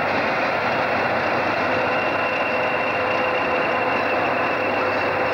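British Rail Class 20 diesel locomotive, with its English Electric eight-cylinder engine, running steadily as it passes at low speed. A steady engine drone with faint whistling tones through it.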